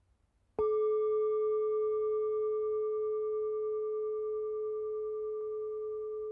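Singing bowl struck once, about half a second in, ringing one steady tone with fainter overtones that slowly fades.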